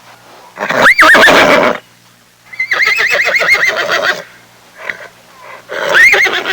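A horse whinnying three times: a short call that jumps up in pitch and falls back, a longer call that quavers rapidly, and another short call near the end.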